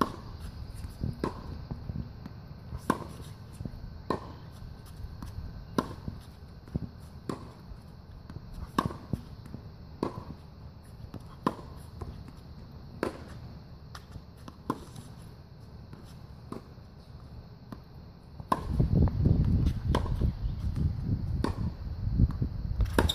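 Tennis ball being hit by a racket during a baseline rally on a hard court, a sharp pop with a short ring about every second and a half, with softer ball bounces between. A loud low rumble covers the last four seconds or so.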